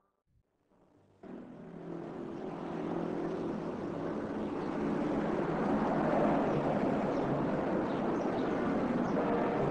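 Steady vehicle engine noise with a low hum. It starts about a second in and builds up over the next few seconds, then holds steady.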